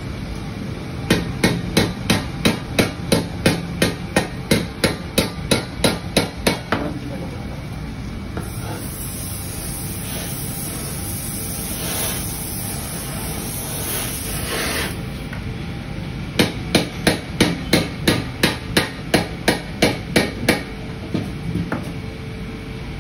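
Hammer blows in quick, even runs of about three strikes a second: one run of several seconds near the start and another after the middle. Between the runs is a steady hiss of several seconds.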